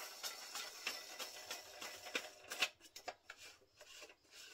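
Threaded collar being spun by hand onto a pole adapter: a quick, irregular rasping and clicking of the threads, with a sharper click about two and a half seconds in.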